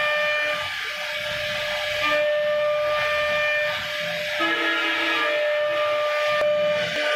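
CNC router spindle running with its bit carving a wooden door panel: a steady high whine over the hiss of the cutting, the tone shifting slightly about four seconds in.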